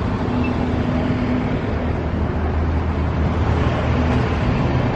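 Motor vehicle running steadily: a low engine hum under an even wash of road and wind noise.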